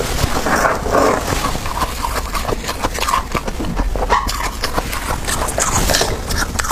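Metal spoon scraping and digging through thick built-up frost in a chest freezer: a dense, continuous crackle of many small scrapes and clicks.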